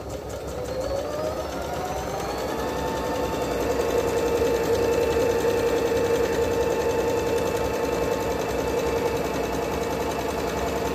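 Singer Fitline 6700 computerized sewing machine stitching a baby picot pattern. Its motor whine rises as it speeds up over the first two or three seconds, then runs steadily.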